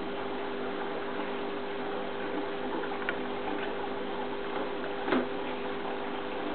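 Steady hum of an aquarium pump with a faint watery hiss, broken by a light tick about three seconds in and a sharper click about five seconds in.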